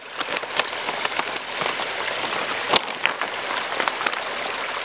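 Water trickling and splashing steadily over the rocks of a small rock waterfall, with a sharp tap a little under three seconds in.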